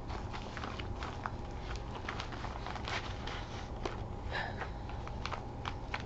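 Faint rustling and scattered light clicks as small items and a paper card are pulled out of a package by hand, over a steady low hum.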